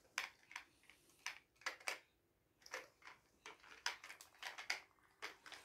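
Scattered light clicks and taps, a few a second with a short pause about two seconds in, from a baby handling a hard plastic doll toy.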